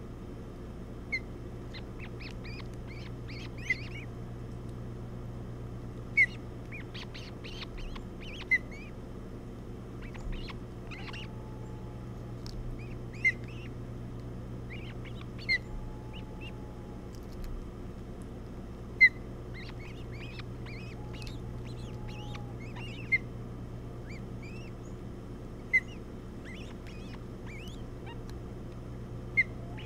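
Ospreys at the nest giving short, sharp chirping calls, about ten of them, every two to three seconds, with fainter high chirps in between. A steady low hum runs underneath.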